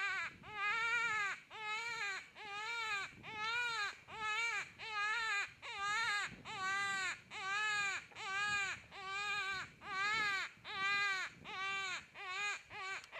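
Hand-blown predator call giving jackrabbit distress cries, a run of loud, reedy wails, each rising and falling, with short gaps between; the last few come shorter and quicker. The cries imitate a rabbit in distress to lure in a coyote.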